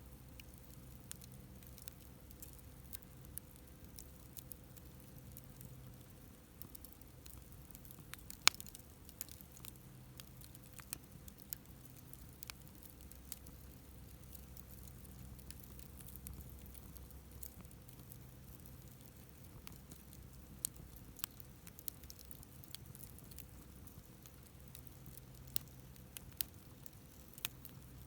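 Wood campfire crackling: scattered sharp snaps and pops from the burning firewood, with one much louder pop about eight seconds in.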